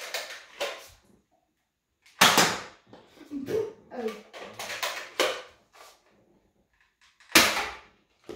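A spring-powered Nerf blaster fired twice, two loud sudden shots about five seconds apart. Softer knocks come between them.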